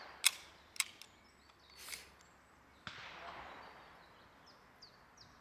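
Two sharp cracks about half a second apart from a handgun being fired, then a fainter bang with a trailing echo about three seconds in. A small bird calls throughout with short falling chirps repeated several times a second.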